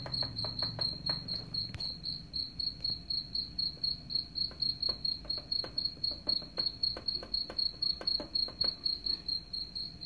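Recorded cricket chirping played through a smartphone speaker as a supposed rat repellent: a high, even chirp pulsing about four times a second. Scattered sharp clicks come from the rat moving about in its wire cage trap.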